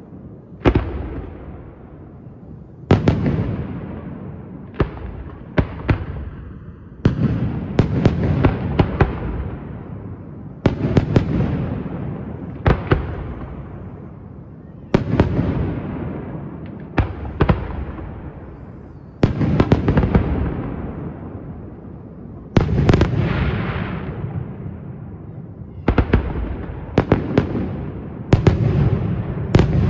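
Aerial firework shells bursting in steady succession, a sharp bang every one to two seconds with a long rolling echo after each, and now and then a quick cluster of several reports.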